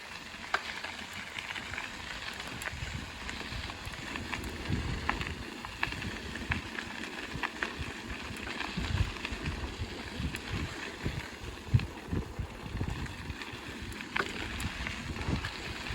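Wind buffeting the microphone while riding a bicycle along a trail, with the rumble of tyres and scattered small clicks and rattles from the bike.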